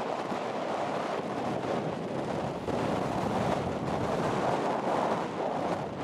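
Wind and small waves washing on a sandy ocean shore: a steady rushing noise that grows a little louder about three seconds in.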